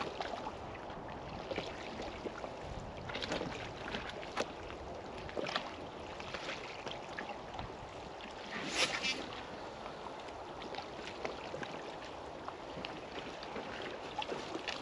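A sea-fishing cast with a beachcasting rod: a brief rush about nine seconds in as the rod swings through and line runs off the reel. Underneath, steady wind and water lapping against the rock ledge, with scattered small clicks.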